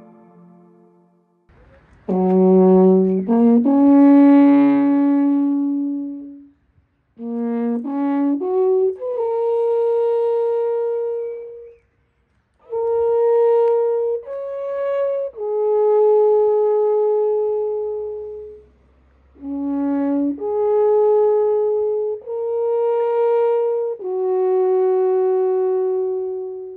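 Wooden alphorn played in four phrases of long held notes, stepping between pitches, with short breaks between the phrases; it begins about two seconds in.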